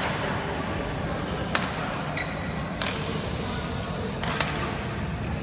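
A few sharp taps of badminton rackets striking a shuttlecock, well spaced apart, over the steady hum of a large sports hall.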